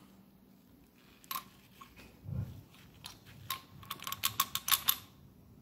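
Light metallic clicks and taps from the loose centrifugal oil filter rotor of a Hawk DLX 250cc engine being handled: a single click, a dull bump about two seconds in, then a quick run of clicks about three and a half seconds in.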